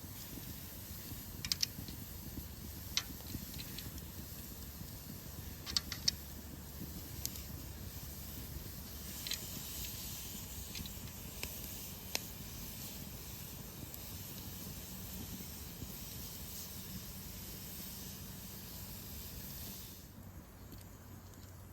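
Wood cooking fire under a steady hiss, with scattered sharp crackles; the hiss drops away abruptly near the end.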